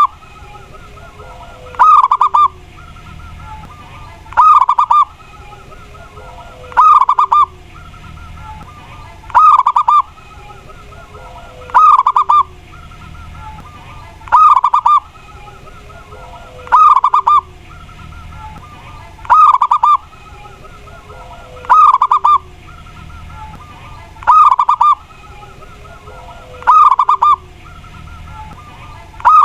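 Zebra dove (perkutut) of the local Mataram type cooing its song: the same short phrase repeated about every two and a half seconds, each a quick rolling trill followed by a fainter, lower falling note.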